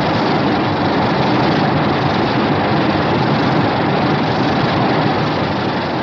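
Godzilla film sound effect from the 1992–1995 films: a steady, loud rushing rumble with no clear pitch, starting to fade near the end.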